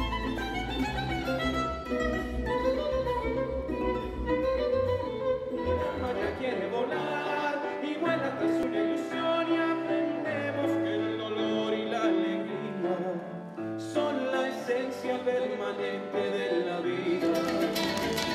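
Music from a live stage show, changing a few times as it goes, with sharp quick percussion coming in near the end.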